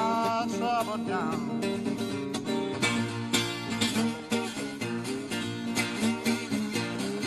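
Solo acoustic guitar playing a country blues, with a voice singing the end of a line in the first second or so, then the guitar alone with busy plucked notes.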